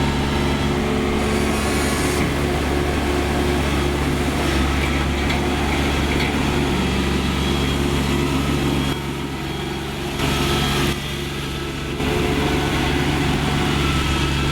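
Kubota DC-35 combine harvester's diesel engine running steadily, with two brief drops in level in the second half.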